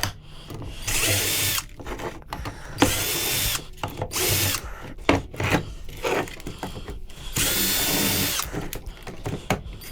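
Power drill driving screws out of a PTAC fan motor's casing, running in several short bursts with a steady whine, the longest lasting about a second near the end, with handling clatter between bursts.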